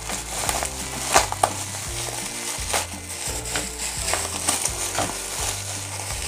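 Black plastic bubble wrap being crinkled, torn and pulled open by hand, with two sharp crackles a little over a second in. Background music with a low, steady bass line plays underneath.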